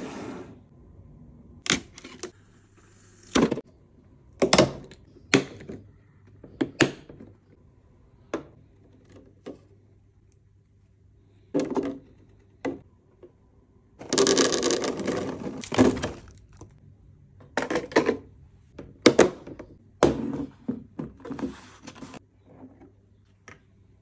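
Hard plastic fridge storage boxes and their colander baskets being handled and set down on a wooden table: a string of sharp plastic knocks and clicks, with a longer rustling, scraping stretch of about two seconds a little past halfway.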